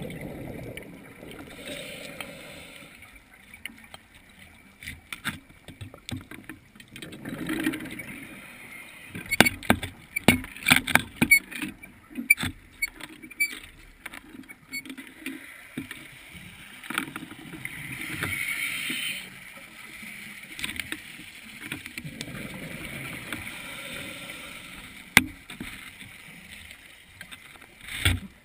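Underwater sound through a GoPro housing: a scuba diver breathing, with hissing inhales from the regulator alternating with the rush of exhaled bubbles. A burst of sharp clicks and knocks comes around ten to thirteen seconds in.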